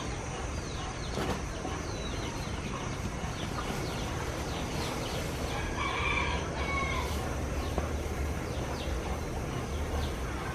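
A rooster crowing once, a held call of about a second some six seconds in, over many short high chirps and a steady high hiss.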